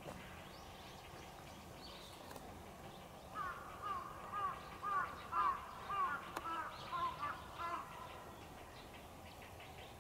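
A bird calling repeatedly: about a dozen short calls, each rising then falling in pitch, about three a second. They start about a third of the way in and stop about two seconds before the end, over faint steady outdoor background.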